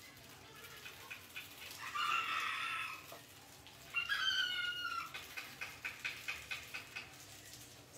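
Rats squealing twice, each call about a second long, the first about two seconds in and the second about four seconds in, falling slightly in pitch. After them comes a run of quick light clicks as the rats move about on the wire-mesh cage.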